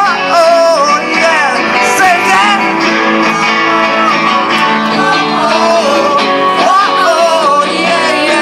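Live acoustic performance: two acoustic guitars strumming chords while a man sings.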